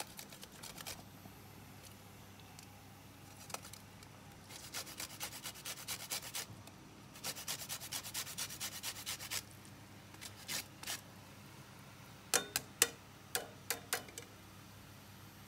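Lemon zest being grated on a flat metal hand grater: runs of quick rasping strokes, about five or six a second, in short bursts. A few sharp taps near the end are the loudest sounds.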